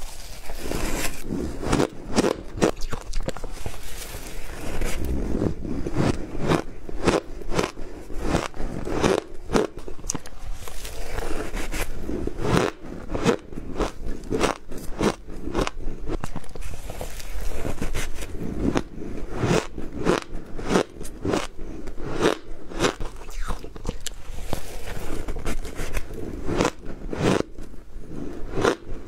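Close-miked biting and chewing of powdery frozen ice: a continuous run of irregular crunches, several a second.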